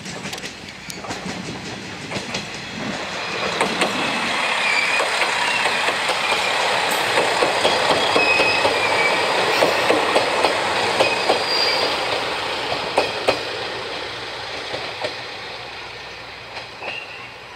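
JR KiHa 110 diesel railcar arriving on the next track: wheels clicking over rail joints, with high wheel squeal. The sound builds, is loudest in the middle, and fades toward the end.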